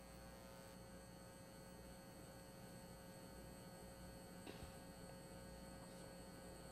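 Near silence: a faint steady electrical hum, with one faint click about four and a half seconds in.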